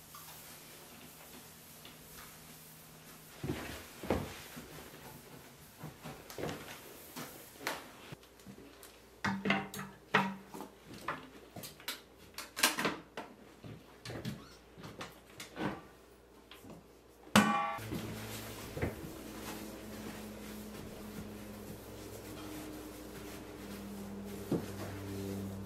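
Scattered knocks and clatters of household objects being handled and set down while surfaces are wiped clean. About two-thirds through there is one sharp knock with a brief ring, and after it a steady low hum runs underneath.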